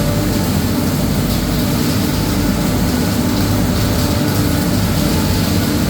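Olive mill machinery running steadily with a loud, even low hum and rumble.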